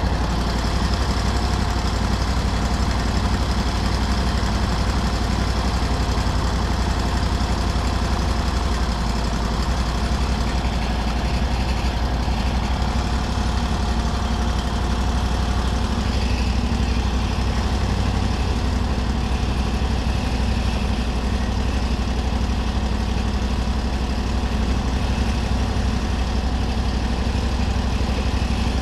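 Off-road buggy engine idling steadily.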